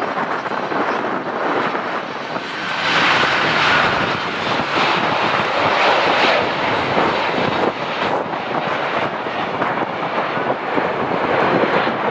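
Icelandair Boeing 767's twin jet engines as the airliner lands, flying past low and touching down: a loud, steady rush of jet noise that grows louder about three seconds in and stays loud.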